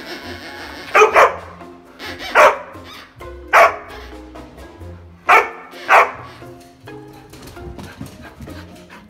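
A dog barks six times in loud, short barks, two close together near the start and the rest spread over the next five seconds, over background music.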